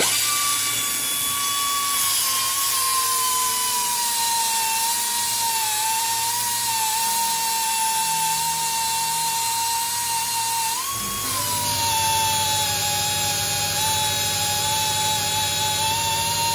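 Small high-speed rotary grinder cutting into a link of a steel O-ring motorcycle chain, used to separate the chain instead of a chain breaker. It gives a steady high whine with a grinding hiss; the pitch sags slightly as the wheel bites and briefly rises about eleven seconds in.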